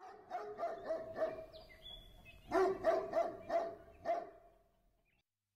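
Chow chow dog barking in two quick runs of short barks, with a brief pause between them.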